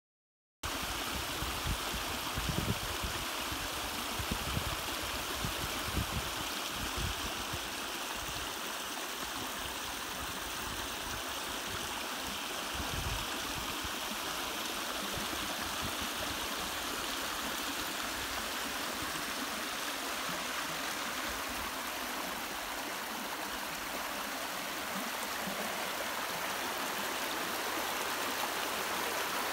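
Muddy, swollen creek at high water rushing fast over a rock-and-gravel dam, a steady, even rush of water that cuts in about half a second in. Low rumbles come and go through the first several seconds.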